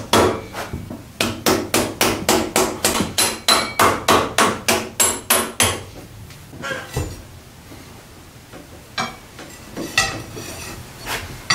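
Hammer tapping on a motorcycle's front axle to drive it out of the wheel: a quick run of sharp, ringing metal strikes about three a second, with a short pause near the start. The strikes then give way to a few scattered knocks and clinks.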